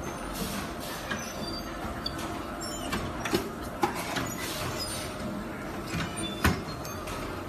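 Steady workshop machinery noise with scattered sharp clicks and knocks; the loudest knock comes about six and a half seconds in.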